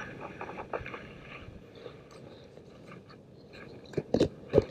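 Quiet rustling of handling, then a few sharp plastic clicks and pops near the end as the snap-on lid of a white plastic tub is pried open.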